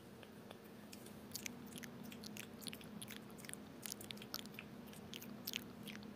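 Close-miked hand sounds: palms rubbing and fingers working toward the microphone, giving a quiet run of soft, irregular sticky clicks and crackles over a faint low hum.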